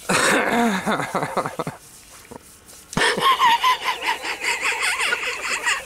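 A garden hose spraying water over a small dog as it is washed, with short vocal sounds over the spray.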